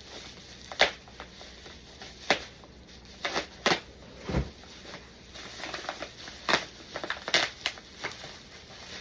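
Packaging being handled while suit pieces are unpacked: scattered rustles, crinkles and light clicks, with one dull thump about four and a half seconds in.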